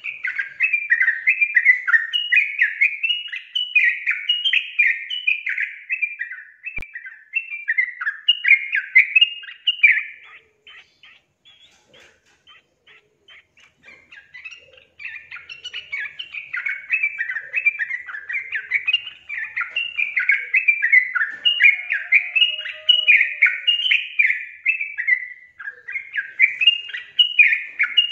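Yellow-vented bulbul (trucukan) singing: long runs of quick warbled notes, phrase after phrase, breaking off about ten seconds in for a few seconds of scattered soft notes, then starting up again about fifteen seconds in.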